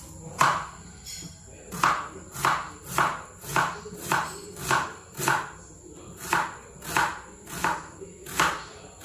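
Kitchen knife slicing a red onion on a plastic cutting board: about a dozen crisp strokes, roughly two a second, each a tap of the blade on the board, with a brief pause in the middle.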